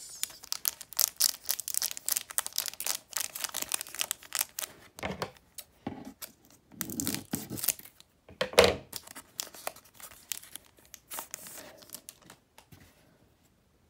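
Foil Pokémon booster pack wrapper crinkling and rustling as it is handled and cut open with scissors, with a few louder crackles, the loudest a little past halfway. The crinkling dies away near the end.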